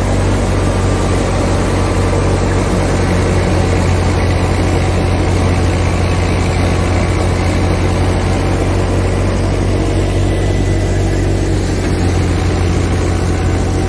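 Tractor-driven wheat thresher running steadily under load, the New Holland Dabung 85 tractor's engine humming beneath the noise of the thresher's belts, drum and chaff blower.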